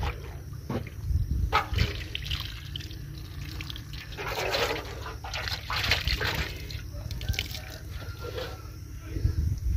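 Shallow muddy water splashing and dripping in irregular bursts, as an aluminium basin is lifted out of the puddle and the water settles.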